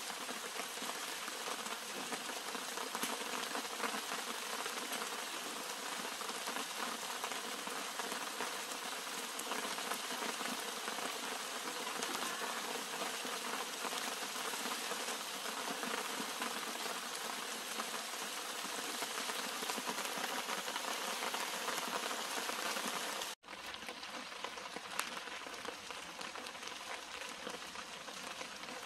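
Steady rain falling on garden plants, the drops hitting flower clusters and leaves. The sound cuts out for an instant about three-quarters of the way through, then carries on a little softer.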